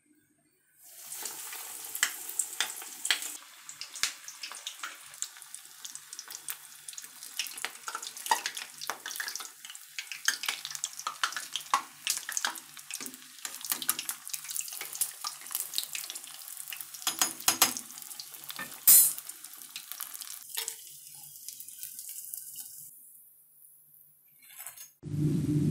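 Hot oil sizzling and crackling, a dense spatter of small pops, as a breadcrumb-coated chicken drumstick deep-fries in a pot. It starts about a second in, has one loud pop about nineteen seconds in, and dies away a couple of seconds before the end.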